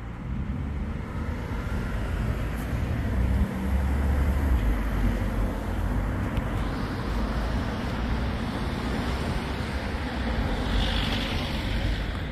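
Road traffic: cars passing along a street, a steady rush of tyre and engine noise with a low rumble that swells about four seconds in.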